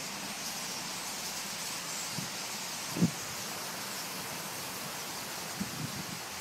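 Steady rustling hiss of a large flock of common starlings flying overhead in a murmuration. A few low thumps break through, the loudest about three seconds in and two smaller ones near the end.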